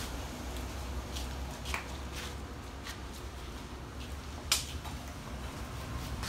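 A few light clicks of hard objects set on sheet glass, the sharpest about four and a half seconds in, over a low steady rumble.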